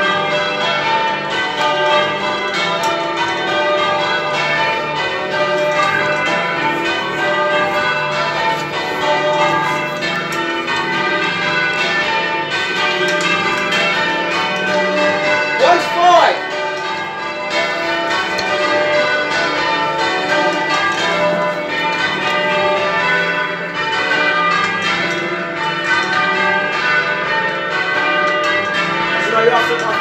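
A ring of eight church bells, tenor about 20 cwt in the key of D, being change rung: the bells strike in steady succession in a continuous stream, their ringing overlapping. A brief call from a voice cuts in about halfway through.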